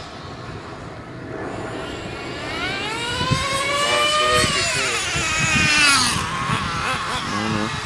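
Small nitro RC car engine running hard, a high whine that climbs in pitch for a couple of seconds as the car speeds up, then drops away.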